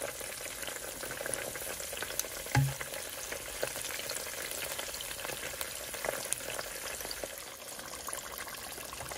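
Egg rolls deep-frying in hot peanut oil in a Fry Daddy deep fryer, turned with metal tongs: a steady sizzle with fine crackling pops. A single short low knock about two and a half seconds in.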